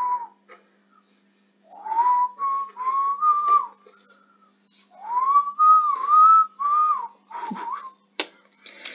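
A person whistling a tune by mouth. A held note fades out just at the start, and after a quiet gap come two short phrases of gliding, rising-and-falling notes.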